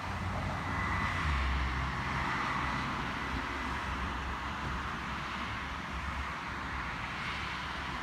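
Steady outdoor background noise: an even hiss over a low rumble, a little louder in the first couple of seconds.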